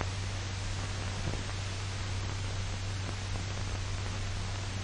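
Steady hiss and low hum of an old film soundtrack, with no other sound.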